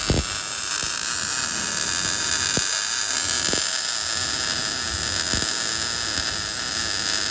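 Welding arc on thin aluminum, a steady high hiss with a faint buzz, as a bead is laid down.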